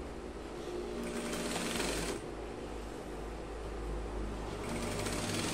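Industrial straight-stitch sewing machine stitching the seam of a trouser leg being taken in. It sews in two runs, the first about a second in and lasting about a second, the second starting near the end, with a steady low motor hum between.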